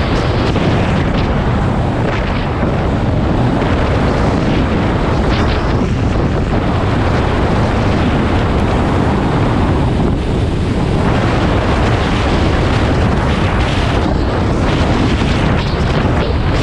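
Heavy, steady wind noise blasting the microphone of a motorcycle being ridden at road speed, with the bike's running noise buried underneath.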